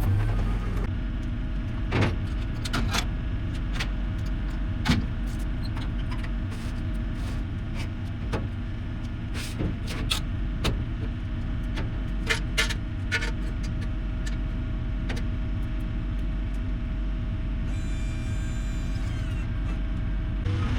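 Heavy machine engine running steadily, with scattered sharp knocks and clunks over it.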